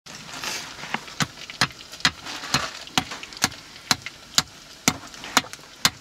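Sharp knocks at a steady, even pace of about two a second, each short and clear-cut, over a low background with a brief hiss near the start.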